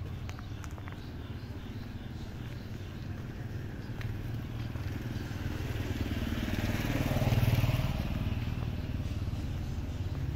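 Motor scooter passing close by, its engine sound swelling to a peak about seven seconds in and then fading, over a steady low background rumble.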